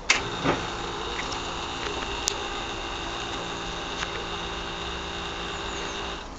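Aprilia SR50 DiTech scooter giving a steady electric whine with several even tones, after a click at the start and another about half a second in. The whine cuts off suddenly near the end.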